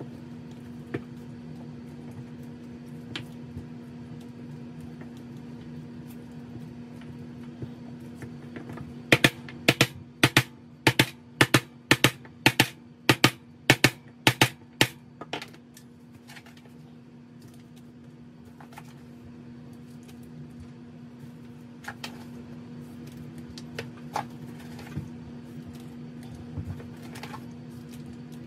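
A soft-faced mallet striking a wooden block about fifteen times in six seconds, some blows in quick pairs, ramming casting sand down into a metal flask. A steady low hum lies underneath, and near the end there is light scraping as the excess sand is struck off.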